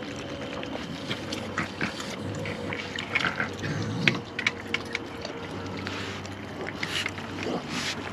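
Raccoons foraging among scattered cereal treats on a patio: a run of small clicks, crunches and scratches, busiest around three to four seconds in, over a faint steady hum.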